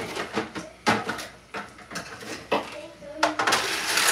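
A serving utensil clinking and scraping against metal cooking pots and a plate as food is dished out: a few sharp clinks, then a longer stretch of busier scraping noise near the end.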